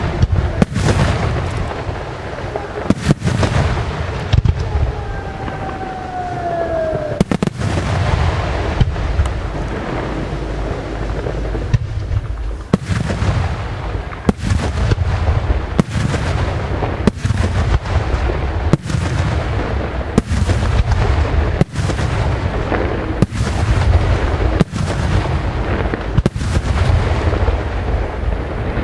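Aerial firework shells bursting in a steady barrage, many sharp bangs in quick succession over a continuous low rumble. A falling whistle sounds about five to seven seconds in.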